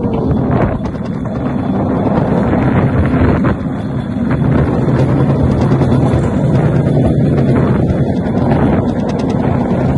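Open rail car running along the track: a steady low rumble of its motor and wheels on the rails, with wind buffeting the microphone.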